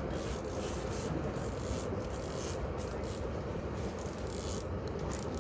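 Fishing reel cranked in repeated short rasping bursts while a hooked king salmon is played, over the steady low rumble of the boat's engine.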